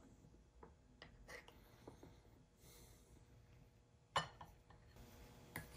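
Near silence broken by faint clicks of a spoon scooping sesame paste from a glass jar, then a sharp knock about four seconds in as a spoon strikes the ceramic sauce bowl, with a smaller knock near the end.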